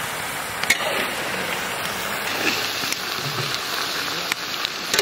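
Freshly added raw mutton sizzling in hot oil in a large metal kadai as it is stirred, a steady hiss with a few sharp clicks of the metal spatula against the pan.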